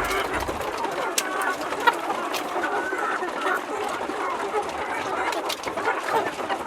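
A flock of domestic chickens clucking, many birds calling over one another without a break.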